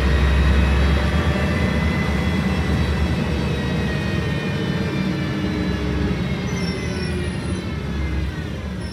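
Scania L113CRL city bus heard from a seat inside: engine and drivetrain running with a low rumble and a whine that falls slowly in pitch as the bus slows.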